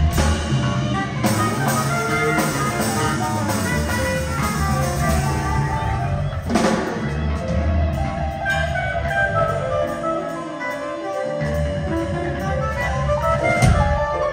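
Live progressive rock band playing: electric guitars, bass, keyboards and drums, with a woodwind joining in. The bass and drums drop out for about a second around ten seconds in, then come back, and a cymbal crash comes just before the end.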